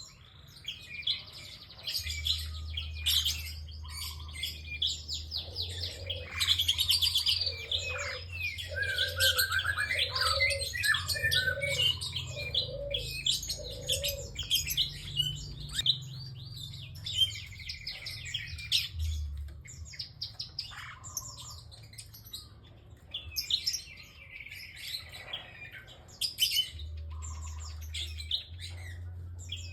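A prinia (prenjak) singing vigorously, with rapid high chirps and trills. A short run of lower repeated notes comes in the middle, and a low hum is heard in parts.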